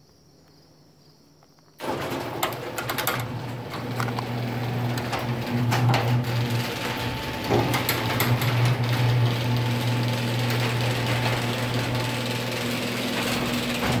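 Genie Pro screw-drive garage door opener (model CM8600-XL/M) starting about two seconds in and running steadily: a motor hum with the rattle of the screw drive and the 16x7 sectional door moving along its track.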